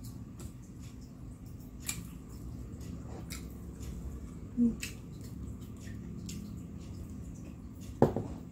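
Hands handling fried fritters and a small glass bowl of peanut sauce: scattered light clicks and taps, with one sharper knock near the end.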